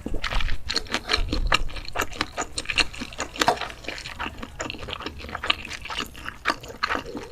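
Close-miked eating: wet chewing and slurping, with many quick mouth clicks and smacks.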